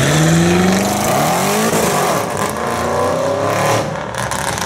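Audi RS6 Avant's twin-turbo V8 accelerating hard, revs climbing steeply. There is one upshift a little under two seconds in, and then the revs climb again before the sound fades as the car pulls away.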